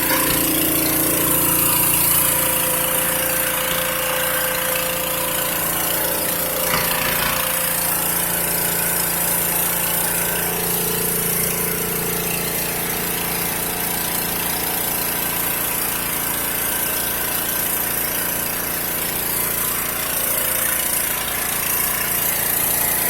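Engine of a hydro-jet drain cleaning machine running steadily, with a constant high hiss over the hum.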